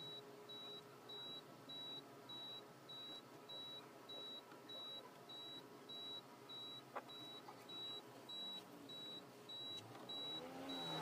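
Car's warning chime beeping on and on, one short high beep a little under two times a second, with a single click about seven seconds in.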